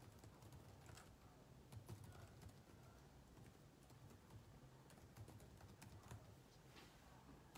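Faint typing on a computer keyboard: soft, irregular key clicks over a low room hum.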